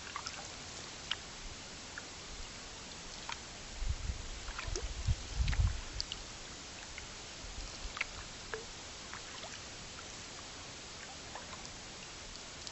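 Canoe being paddled: a steady hiss of water with scattered small drips and ticks, and a brief low rumble of knocks about four to six seconds in.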